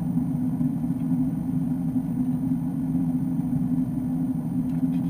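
Steady in-cabin drone of an Airbus A330-200 in flight: engine and airflow noise heard through the fuselage, with an even low hum.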